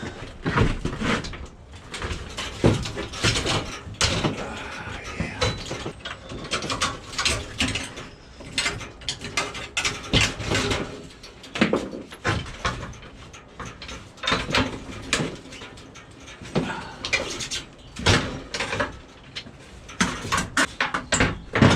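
Irregular knocks, clanks and scrapes of metal scrap being handled and taken apart by hand.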